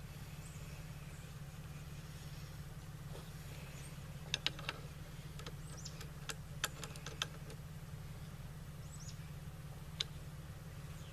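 Scattered light clicks and taps of AR rifle parts being handled during assembly, in small groups about four, six to seven, and ten seconds in, over a steady low hum.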